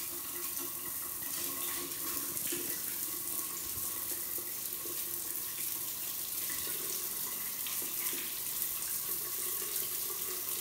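Shower spray running steadily, water falling and splashing onto a stone-tile shower floor: an even hiss.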